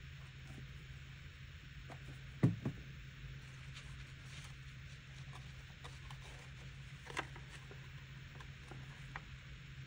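Hands handling paper pieces and pressing glued flaps together: faint rustling and small clicks, with two soft knocks close together about two and a half seconds in and another near seven seconds. A low steady hum runs underneath.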